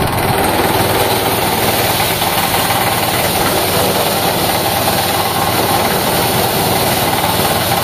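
Small petrol engine running steadily at moderate throttle, driving a portable double-blower rice thresher while rice stalks are fed into its drum.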